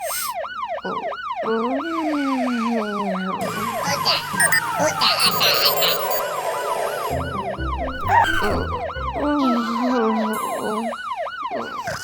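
Fire-truck siren in a fast yelp, its pitch sweeping up and down about three times a second, with cartoon background music and sound effects underneath.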